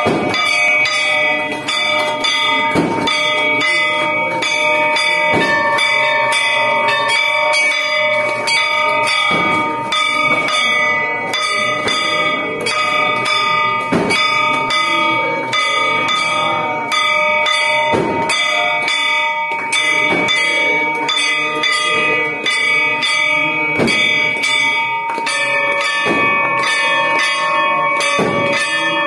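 Hanging brass gong beaten rapidly with a stick, a dense run of metallic clangs over a steady ring of several overlapping bell tones. Near the end the pitch of the ringing shifts as hanging temple bells are rung by hand.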